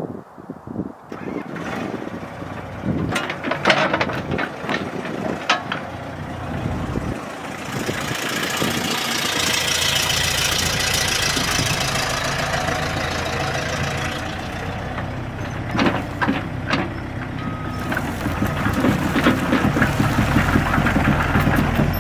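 Komatsu PC60-7E mini excavator's diesel engine running under load while the machine swings and works its boom, arm and bucket, with a steady hiss through the middle and sharp clanks here and there.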